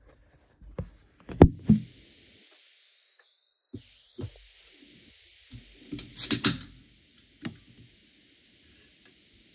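Aluminium cans of sparkling water being cracked open: sharp clicks and a pop about a second and a half in, then a second pop with a burst of hissing gas about six seconds in, with a faint steady fizz of carbonation in between and after.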